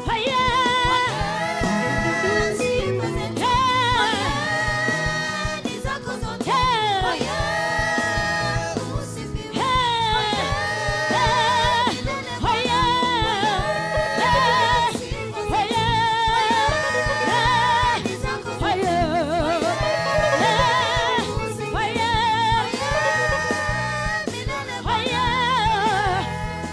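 Gospel worship song: a voice sings long held phrases with heavy vibrato over steady instrumental backing.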